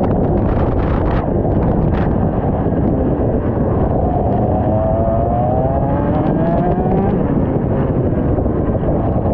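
IAME X30 125cc two-stroke kart engine running on track, mostly buried under a heavy rushing noise; about four seconds in its pitch climbs steadily for a few seconds as the kart accelerates.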